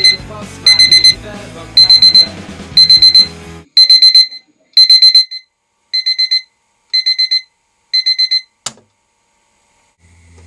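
Small square travel alarm clock beeping in bursts of four high beeps, about one burst a second. Music plays under it for the first third and then stops. The beeps go on alone, a little quieter, until a sharp click near the end, after which they stop.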